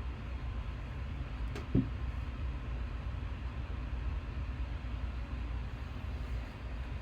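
Steady low room hum and rumble, with a single sharp click and a soft thump a little under two seconds in.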